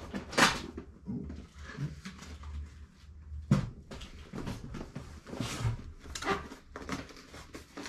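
Cardboard boxes knocking and rustling as they are rummaged through and lifted out of a large cardboard shipping box. The knocks are scattered, with the loudest about three and a half seconds in and several more close together near the end.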